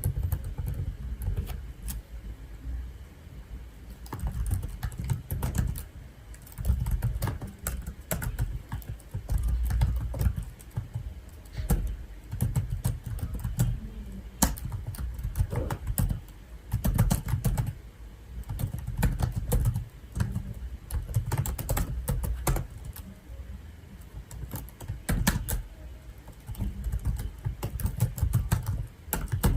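Computer keyboard being typed on, quick irregular key clicks with a dull thud of the keys against the desk, coming in bursts with short pauses between them.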